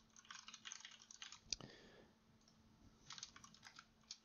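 Faint typing on a computer keyboard: a quick run of keystrokes through the first second and a half, a pause, then another short run about three seconds in.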